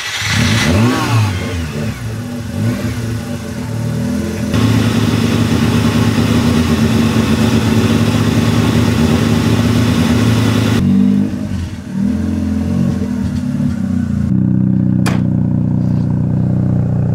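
Mazda RX-7's 13B rotary engine revving up and down for a few seconds, then held steady at raised revs while it draws water through a vacuum line to steam-clean carbon from the rotor chambers. The revs dip briefly about eleven seconds in, then settle at another steady speed.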